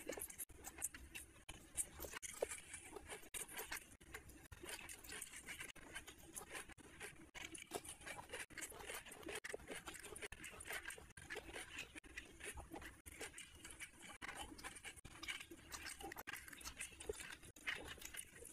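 Fingers squishing and kneading rice with curry on a plate by hand: a continuous run of faint, irregular soft clicks.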